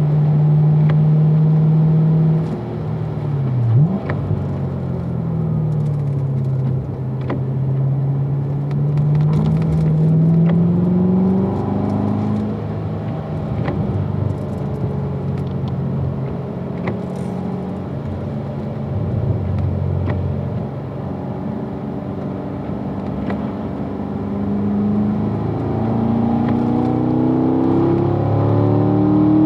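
Chevrolet Corvette Grand Sport's 6.2-litre V8 driven through corners and heard from inside the cabin, its note rising and falling with the throttle. About four seconds in there is a quick blip of revs as it shifts down from fourth to third, and near the end the pitch climbs steadily as it accelerates onto a straight.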